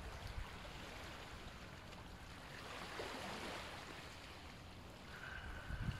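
Ujjayi breathing: a slow, soft, ocean-like hiss of air through a narrowed throat, swelling and fading about halfway through. Under it is a low steady rush of sea surf, and a faint thin steady tone comes in near the end.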